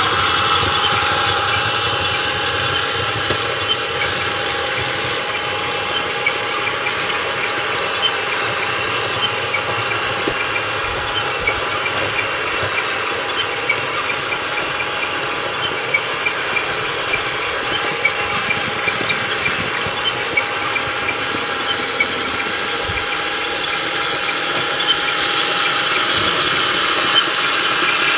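Radio-controlled toy backhoe loader running: a steady motor-and-gearbox whine with scattered small ticks and rattles.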